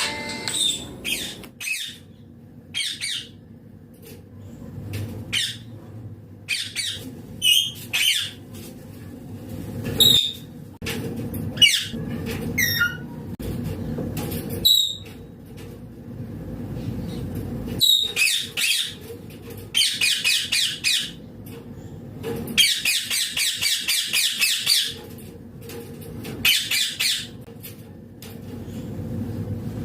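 Indian ringneck parakeet calling: a string of short, shrill squawks, then longer harsh screeching runs about two-thirds of the way in.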